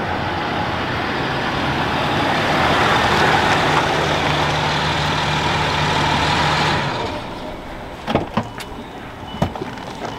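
Land Rover Discovery driving up and pulling in, its engine running steadily and then cut off sharply about seven seconds in. A few clicks and knocks follow as the driver's door is opened.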